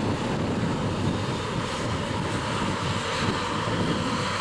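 Embraer ERJ regional jet's rear-mounted turbofan engines running as it rolls along the runway, a steady rushing jet noise.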